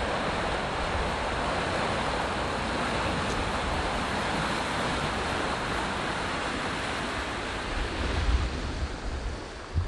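Water rushing and churning as it pours from a concrete outfall into a canal: a steady, even rush. Wind gusts on the microphone near the end.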